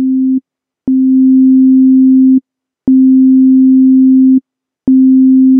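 Pure sine-wave synthesizer tone from Ableton's Operator on a C near middle C, repeating. Each note is about a second and a half long, a new one every two seconds. Each note switches on and off abruptly with a faint click, because the envelope's attack is set to zero so the note comes on at full volume at once.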